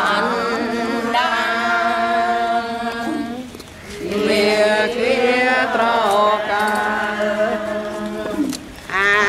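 Buddhist chanting: voices drawing out long, steady held notes in two long phrases with a brief break between them.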